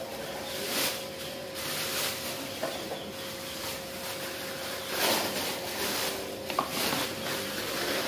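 Thin plastic bags rustling and crinkling in irregular bursts as they are opened and filled with green chilies, over a faint steady hum.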